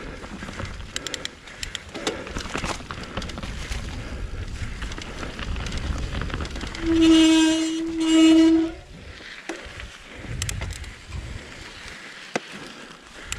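Mountain bike descending a rough trail: tyre noise with frequent rattles and clacks from the frame and drivetrain. About seven seconds in, two loud, steady, high-pitched whines, each about a second long, sound back to back.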